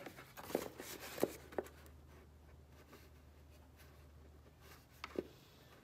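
Light knocks and clicks as the two taped halves of a helmet shell are pressed back together and handled on a table: three in the first couple of seconds, then two more close together near the end.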